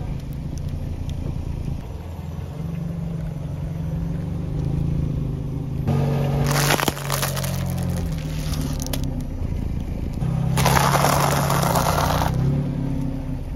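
A car tyre rolling over and crushing crunchy food. A plastic-wrapped roll of cookies crackles and crunches about six seconds in, and a pile of pretzels crunches loudly for about two seconds near the end, over a steady low hum.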